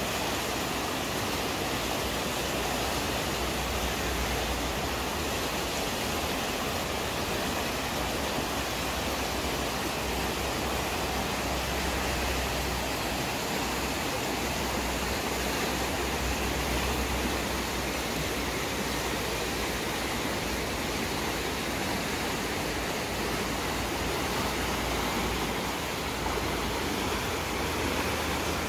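Fast-flowing glacial meltwater river rushing steadily over its stony bed, with a low rumble that swells now and then.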